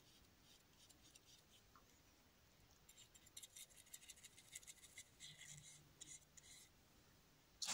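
Faint scratchy strokes of a fine paintbrush dabbing and rubbing acrylic paint onto textured canvas, starting about three seconds in.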